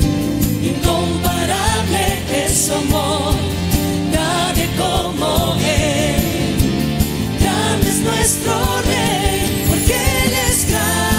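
Live worship band and singers performing a Spanish-language praise song: vocals over keyboards, electric guitar, bass and drums with a steady beat.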